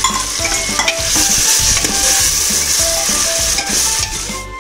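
Marinated mutton sizzling in hot sesame oil in an aluminium pressure cooker, with a steel ladle stirring and scraping the pot. The hiss is strongest through the middle.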